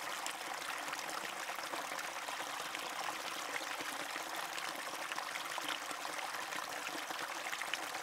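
Creek water running steadily.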